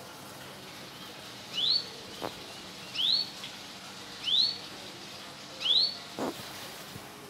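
A caged songbird calling: a short, rising whistled note repeated four times, about once every second and a half, with a light knock in between.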